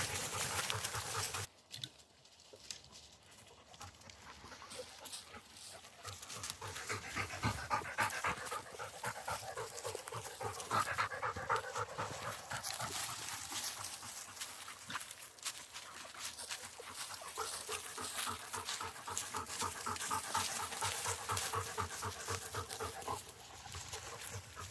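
Labrador retriever panting in a quick, steady rhythm, after a brief louder noise in the first second or so.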